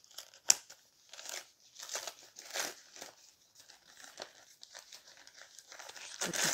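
Newspaper wrapping crinkling and rustling in short bursts as it is handled, with one sharp crackle about half a second in.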